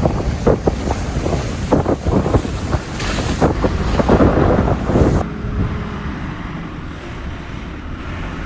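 Strong wind gusting on the microphone over stormy sea surf. About five seconds in, the sound changes abruptly to a quieter, duller steady rumble.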